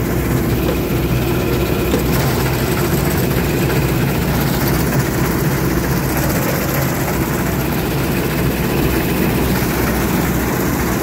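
A 1965 Massey Ferguson 86 combine harvester running steadily under load as it cuts barley: a constant low engine hum blended with the noise of the threshing machinery.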